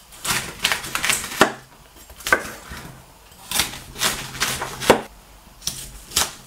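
Kitchen knife cutting through a head of white cabbage around its tough core and striking a wooden cutting board: about ten sharp, irregularly spaced cuts, some in quick pairs.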